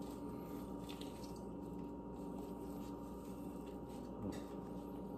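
Faint, soft squishing and small clicks of gloved fingers peeling the charred skin off a roasted eggplant, over a steady low hum.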